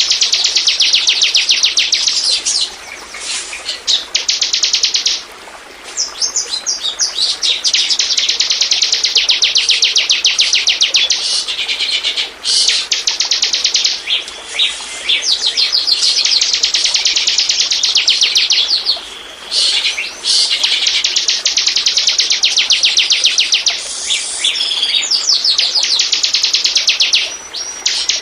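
Bar-winged prinia (ciblek) song played as a lure recording: long runs of very fast, high-pitched trilled notes, broken by several short pauses.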